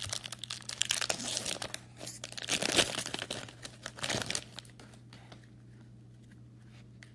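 Crinkling and tearing of a jumbo trading-card pack wrapper being ripped open by hand. It stops about four and a half seconds in, leaving only a faint low hum.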